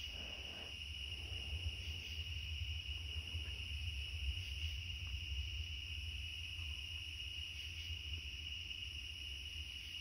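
Night insects trilling steadily, a constant high-pitched chorus, over a low rumble.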